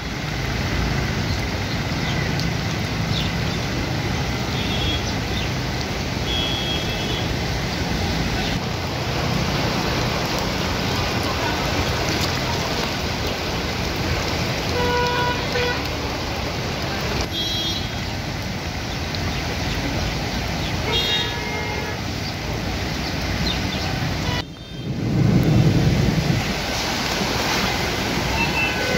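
Traffic on a flooded road: a steady rush of water and vehicles running through it, with vehicle horns tooting briefly several times. A loud low rumble comes near the end.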